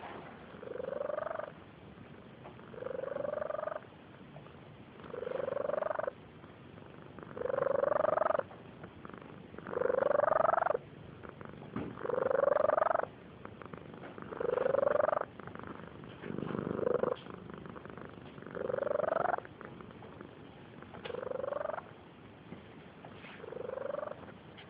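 Barn cat snoring in its sleep: about eleven snores, one every two seconds or so. Each lasts about a second and rises in pitch.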